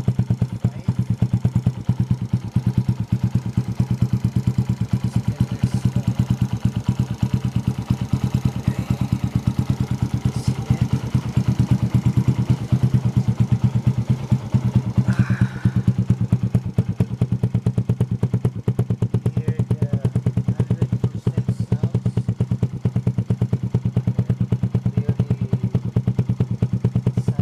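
Suzuki Shogun Pro 125 motorcycle engine idling steadily through an aftermarket NOB1 exhaust pipe, with an even, rapid exhaust beat.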